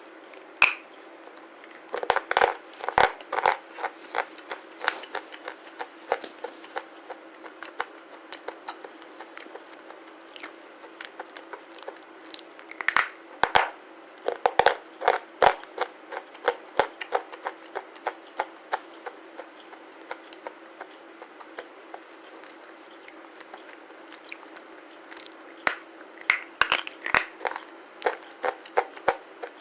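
Close-miked crunching as pieces of black slate are bitten and chewed. Crisp crunches come in three dense bursts, about two seconds in, around the middle and near the end, with scattered single crunches between.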